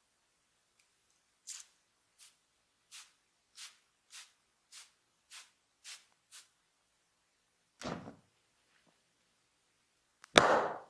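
Hands working on skin in a massage: a run of about nine quick, even swishing strokes, roughly one every two-thirds of a second. These are followed by a louder hit about eight seconds in and a sharp, loudest smack near the end.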